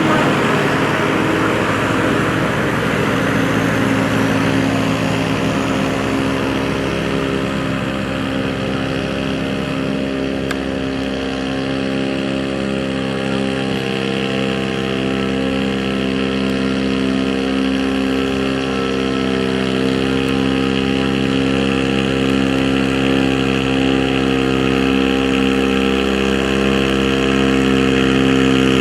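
Farm tractor's diesel engine running loudly and steadily, its pitch holding nearly level. It sounds rougher and noisier for the first several seconds, then runs smoother.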